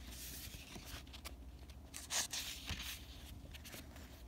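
A paper page of a hardcover picture book being turned, a soft rustling swish of the page, loudest about two seconds in.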